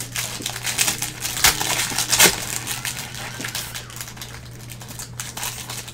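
Baseball card pack's wrapper crinkling and tearing as it is opened by hand. A dense run of crackles comes in the first half, with two sharper ones about a second and a half and two and a quarter seconds in, then fainter rustling.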